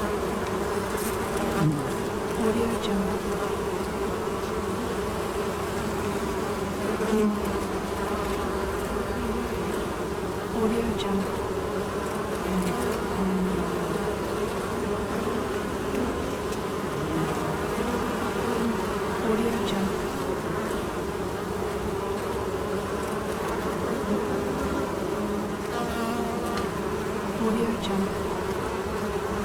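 A swarm of honeybees buzzing steadily at a hive, many overlapping wingbeat hums, with individual bees passing close and drifting up and down in pitch.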